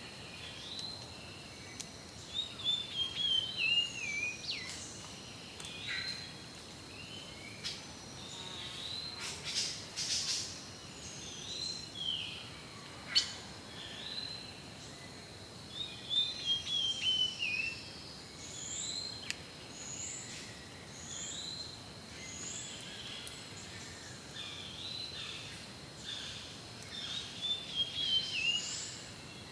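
Several birds calling: short hooked whistles repeated every second or so, a descending stepped trill three times, and a run of higher chirps in the second half, over a faint steady high tone. A single sharp click comes about halfway through.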